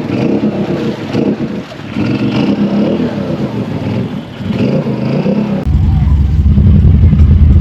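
Four-wheeler engines running and revving, their pitch rising and falling. About five and a half seconds in, the sound cuts abruptly to a loud, steady low rumble.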